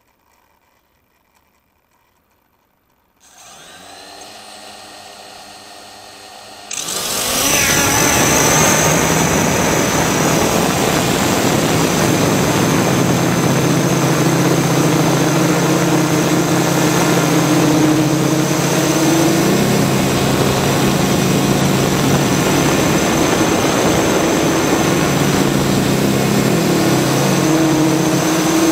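Multirotor camera drone's electric motors and propellers: near silence, then about three seconds in the motors spin up at idle, and at about seven seconds they throttle up sharply for take-off. After that the motors and propellers run loud and steady, their pitch shifting slightly as the drone climbs and holds position.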